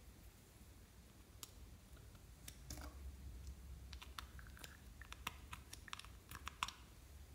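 Faint plastic clicks and taps of a small plastic spatula scooping cream out of a small plastic pot. The clicks are sparse at first and come thicker from about four seconds in.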